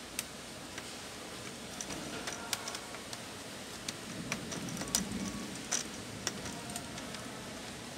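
Plastic screen bezel of an Asus X540 laptop being pressed back onto the display lid, its clips snapping into place with scattered sharp clicks at irregular intervals.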